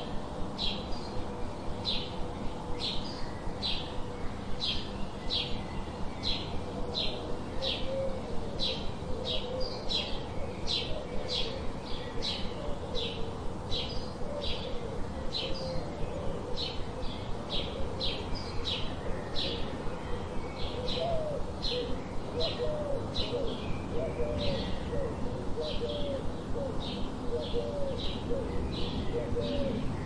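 A bird chirping: one short, high call repeated at an even pace, about twice a second, with fainter, lower wavering notes joining in the second half.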